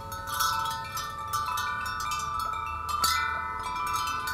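Metal-tube wind chime ringing: the tubes are struck again and again, their clear tones overlapping and ringing on, with one brighter strike about three seconds in.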